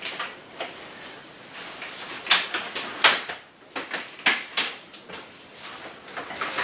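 Cybex Mios compact stroller being unfolded by hand: its frame joints and latches clicking and clacking in a run of sharp knocks, the loudest a little after two seconds and about three seconds in.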